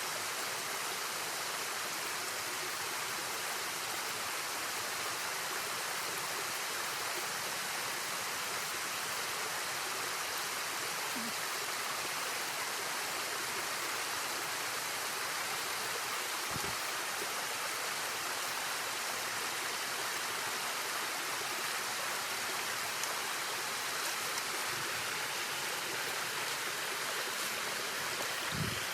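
Linville River water rushing steadily over its bed, an even, unbroken hiss, with two soft low thumps about halfway and near the end.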